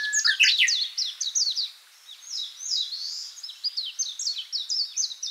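Small birds chirping in a rapid, dense chorus of short, high, downward-sweeping chirps, several a second. A thin steady whistle is held under the chirps at the start.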